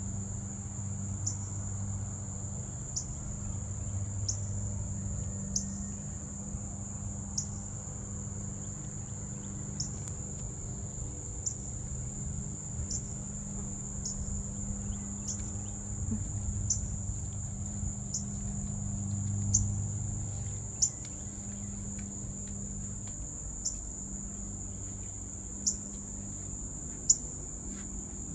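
Insects trilling in one unbroken high-pitched note, with faint ticks about every second and a half and a steady low hum underneath. A few sharp taps come in the last few seconds.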